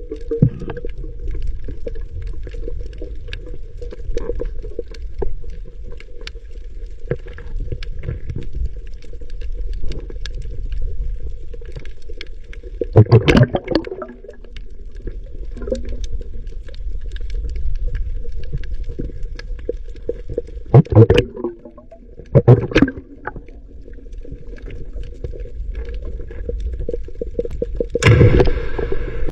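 Underwater recording: a steady low hum and constant crackling clicks, broken by loud, sudden booms, one about halfway, two close together a few seconds later, and a longer burst near the end. The diver takes these booms for the sound of underwater blasts, like fish bombing.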